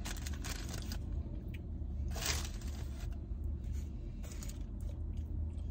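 Paper burger wrapper rustling and crinkling in short bursts as the sliders and pickle slices are handled, the loudest about two seconds in, over a steady low hum in the car cabin.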